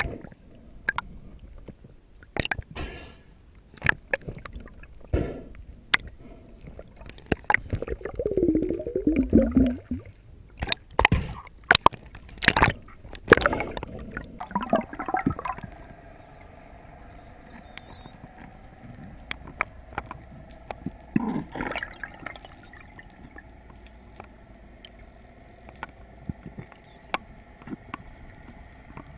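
Water gurgling and sloshing at the microphone, with scattered knocks and clicks. Partway through, a steady motor drone sets in and runs at an even pitch.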